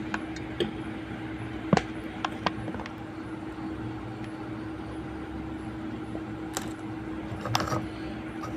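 Small metal tools clicking and tapping on a phone's circuit board, a handful of separate ticks over a steady hum, while a charging connector is worked into its seat.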